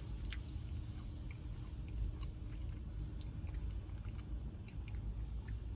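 A person chewing a mouthful of fried chicken sandwich with small scattered mouth clicks, over a steady low rumble inside a car.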